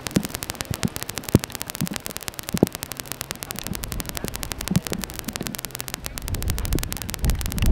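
Fresh lava flow crackling as it cools: a dense, fast run of sharp clicks with a few scattered low knocks. A low rumble builds near the end.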